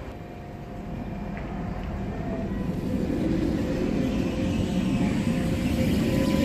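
Tatra T4D tram pulling away from a stop, its motors and wheels on the rails growing steadily louder as it gathers speed.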